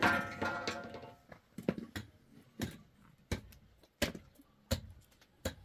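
A young child's brief cry trails off at the start. It is followed by sharp, regular taps or knocks, about one every 0.7 seconds.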